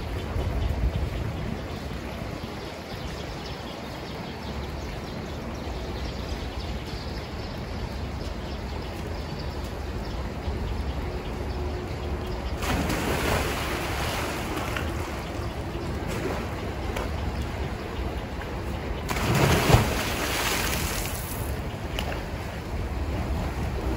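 Steady rushing water noise, with two louder splashing surges about halfway through and again near the end.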